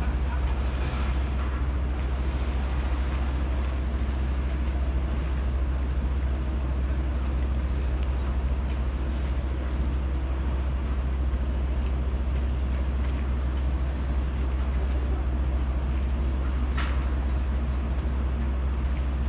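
Steady low rumble of a boat's diesel engine running, with a faint steady hum and wind noise on the microphone. A brief higher-pitched sound comes near the end.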